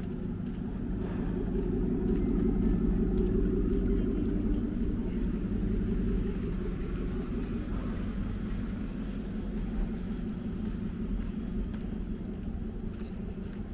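A motor vehicle's engine hum that builds over the first few seconds and then slowly fades.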